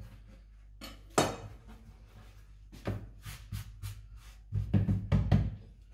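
Kitchen handling sounds: a sharp click about a second in as a kitchen knife is set down on the counter, then a run of short knocks and, near the end, several low thumps as hands press and pat a sheet of gnocchi dough on a wooden cutting board.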